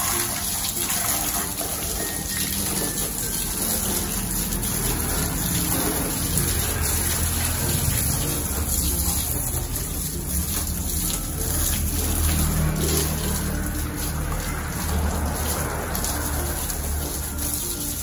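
Water from a garden hose spraying steadily onto a small motorcycle and a tiled floor, rinsing the bike down.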